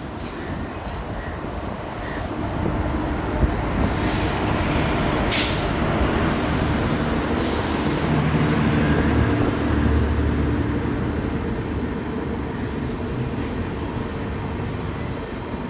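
Electric-locomotive-hauled passenger train of LHB coaches running past along the platform: a steady rumble of wheels on rail that builds up and is loudest about halfway through as the coaches go by, with a couple of sharp clicks early on.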